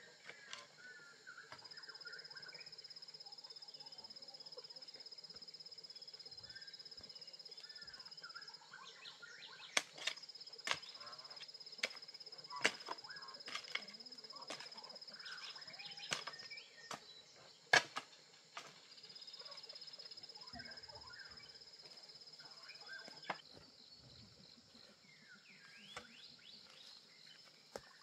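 Steady high insect drone that stops and starts again a few times, with scattered bird chirps. Between about ten and eighteen seconds in comes a run of sharp, irregularly spaced strikes of a hand tool digging into the ground.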